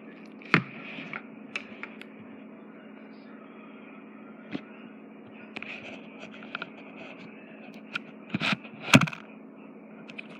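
A steady low hum with a few sharp knocks and clicks from handling: one about half a second in, another near the middle, and two louder knocks near the end.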